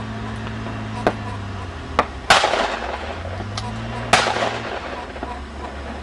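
Over-and-under shotgun fired twice, about two seconds apart, each loud shot trailing off in an echo: a pair of shots at clay targets. A couple of fainter sharp cracks come before them.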